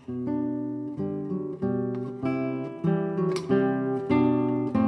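Background music of acoustic guitar: plucked notes and chords, each starting sharply and dying away, about two a second.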